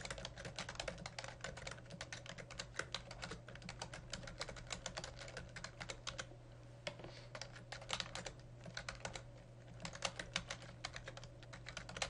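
Typing on a computer keyboard: a fast, uneven run of key clicks with a couple of brief pauses, over a faint steady low hum.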